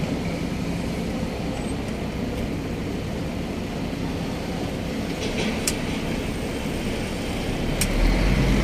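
Diesel construction machinery running at a steady drone, with two sharp clicks in the second half and a heavier low rumble near the end.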